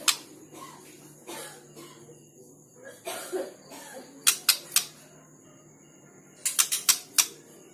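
Sharp clicks or taps: one at the start, three in quick succession about four seconds in, and a fast run of five near the end.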